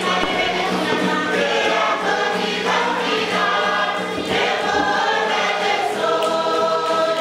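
A group of seated performers singing a cultural dance song together, many voices in a steady choral chant.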